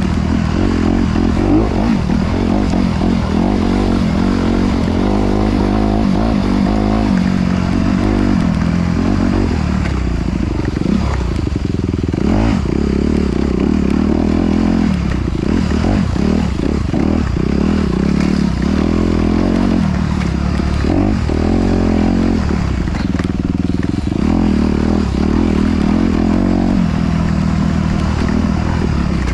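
Off-road dirt bike engine running continuously while being ridden over rough ground, the engine note rising and falling with the throttle, with clattering knocks from the bike over the terrain.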